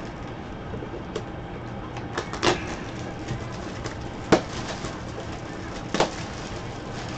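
A cardboard trading-card box being handled and turned by gloved hands: scattered taps and knocks, the sharpest about halfway through, over a steady low hum.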